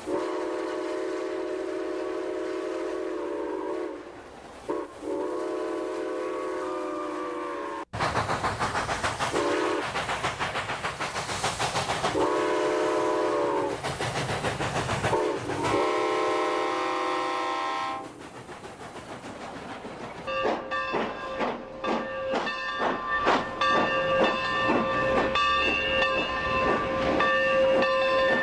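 Model G-gauge steam locomotive sound effects: a multi-tone steam whistle is held, cut off briefly, then blown again. Then comes loud steam hiss with further whistle blasts, and finally a quick run of clicks with steady ringing tones.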